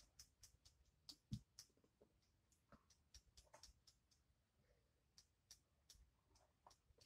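Near silence: quiet room tone with faint, scattered small clicks.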